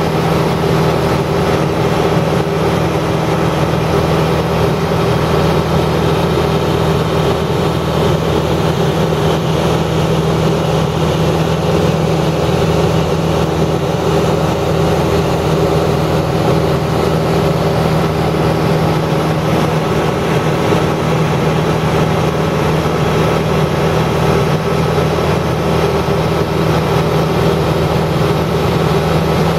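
An engine or motor running steadily: a constant hum with several fixed tones and no change in speed.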